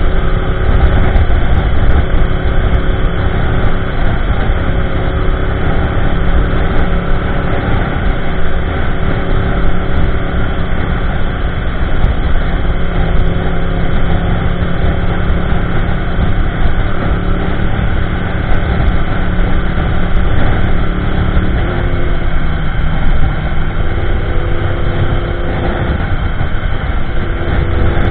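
2015 Yamaha YZF-R1M's crossplane inline-four, breathing through factory headers, an MJS link pipe and an Akrapovic slip-on, cruising at steady highway speed with a low rumble of wind on the microphone. The engine note steps down about three-quarters of the way through and climbs again near the end.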